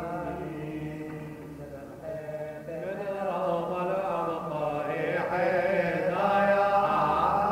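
Syriac Orthodox liturgical chant of the Epiphany service, sung by voices over a steady held low note. It grows louder and fuller from about three seconds in.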